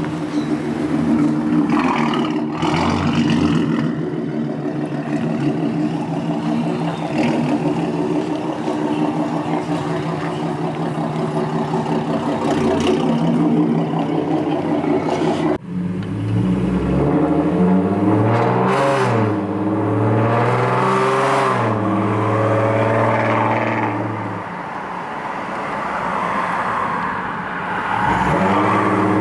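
Ford Mustang 3.7-litre V6 exhaust, running catless with headers and custom downpipes. It idles steadily and loud, then after a cut the engine is revved up and down several times before settling again.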